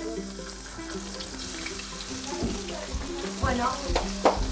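Meat sizzling as it fries in a steel frying pan over a gas burner, a steady hiss, with a few sharp knocks from about halfway in, the loudest near the end, as more pieces go into the pan.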